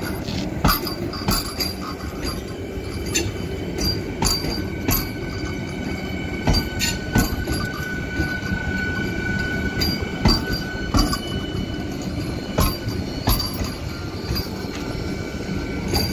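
Vande Bharat Express electric trainset rolling slowly past close by. Its wheels clack irregularly over rail joints and points, over a steady running rumble and a thin, steady high-pitched whine.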